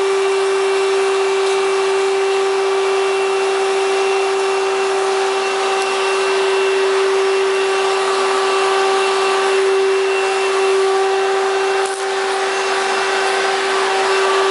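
Hoover Power Drive U6311-930 upright vacuum's 7.8 amp motor running steadily, with a steady high whine over the rush of air, while its hose and attachments are in use. A brief click and dip in level comes near the end.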